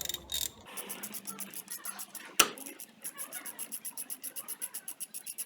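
Ratchet wrench clicking rapidly, about ten clicks a second, as the driveshaft CV joint hub bolt is undone. There is a single sharp, loud knock about two and a half seconds in.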